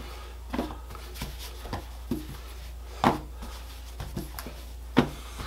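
Hands pressing and patting stretched bread dough flat on a floured wooden board: scattered soft taps and thumps, two of them louder, over a steady low hum.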